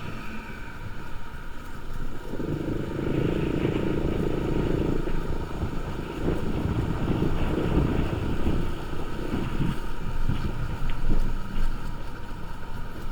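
Motorcycle riding along, its engine and road noise under a steady rush of wind on the microphone, briefly louder a couple of seconds in.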